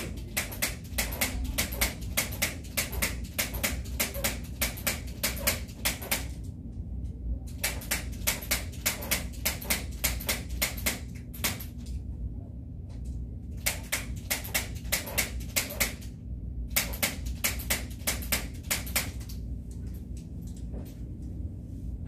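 Chiropractic activator, a spring-loaded hand-held adjusting instrument, clicking rapidly as it is pressed along the spine: about four or five sharp clicks a second, in four runs with short pauses between them.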